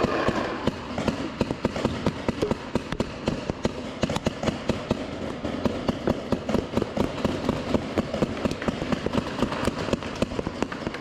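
Paintball markers firing all around, rapid irregular pops several times a second. Near the start, paintballs rattle as they are tipped from a paint pod into the marker's hopper during a reload.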